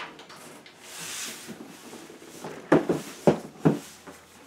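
Large cardboard box being handled and set down on a wooden floor: a soft rustle about a second in, then four sharp knocks in quick succession a little after halfway.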